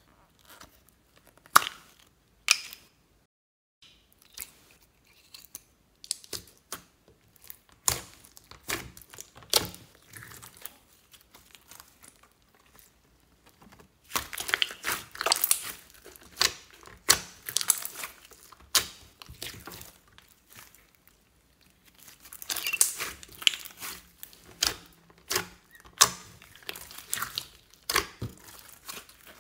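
Slime being squeezed out onto a heap of other slimes and then kneaded and stretched by hand, making dense runs of short crackling, popping squelches. A couple of sharp clicks about two seconds in come from handling a plastic slime container.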